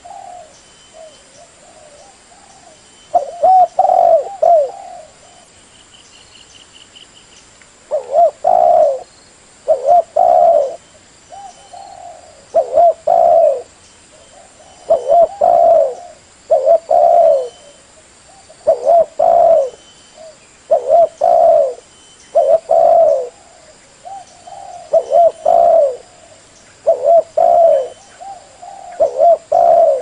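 Spotted dove (tekukur, blorok or leopard colour variety) cooing in repeated short phrases, with a pause of a few seconds near the start, then one phrase after another. The call is used as a lure to get other doves to answer and join in.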